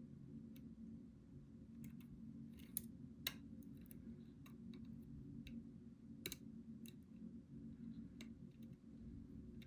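Faint, irregular small metallic clicks of a lock pick and tension wrench working the pins inside a challenge lock, the sharpest a little before 3 s, just after 3 s and just after 6 s, over a low steady hum.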